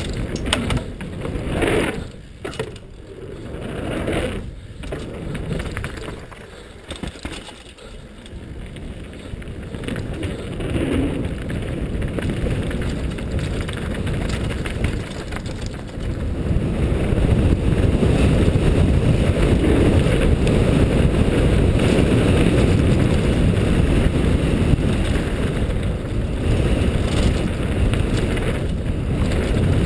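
Downhill mountain bike run on a 2010 Cove Shocker, heard from a helmet-mounted camera: tyres on loose dirt and rock, with the bike clattering over bumps. From about halfway, wind rushes steadily and more loudly over the microphone.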